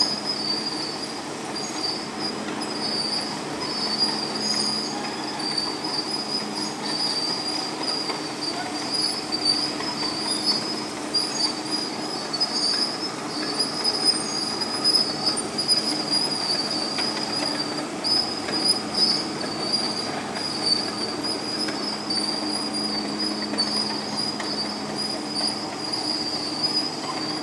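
Caterpillar crawler bulldozer working gravel: a continuous high-pitched metallic squeal from its steel tracks and running gear over the steady running of its diesel engine.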